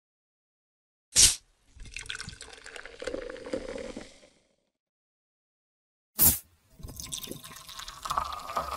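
Soda sound effect from a Coca-Cola logo sting, electronically processed: a sharp pop of the drink being opened, followed by about two and a half seconds of fizzy pouring. The pop and fizzing pour come again about five seconds later.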